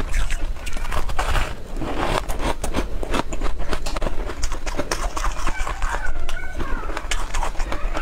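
Crumbly bitter-buckwheat snowflake-crisp blocks crunching and crackling as they are broken apart by hand and chewed: a dense run of sharp, dry cracks.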